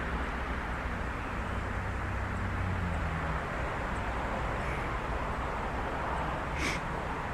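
Steady outdoor background noise, with a low hum that fades out about three seconds in.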